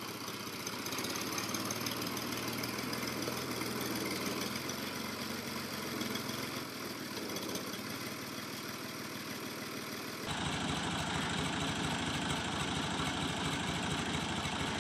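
Old farm tractor's engine running steadily as the tractor moves slowly. About ten seconds in the sound changes abruptly to a heavier, more pulsing running note.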